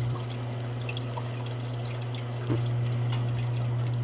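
Aquarium airline bubbling into the tank water, the bubbles breaking at the surface in scattered small drip-like pops, over a steady low hum. A small knock about two and a half seconds in, after which it runs a little louder.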